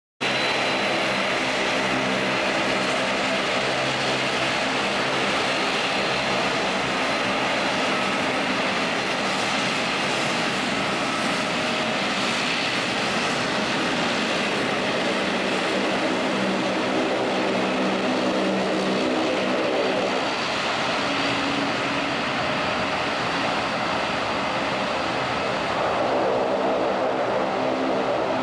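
Twin turboprop engines of a De Havilland Canada Dash 8-400 taxiing at low power: a steady propeller drone with many layered tones and a whine on top. It grows a little louder near the end as the aircraft turns toward the listener.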